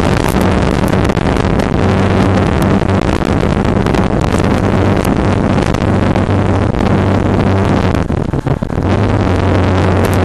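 Heavy wind rush on the microphone over the steady drone of a Yamaha R15's 150 cc single-cylinder engine at cruising speed, with a brief dip in the noise about eight seconds in.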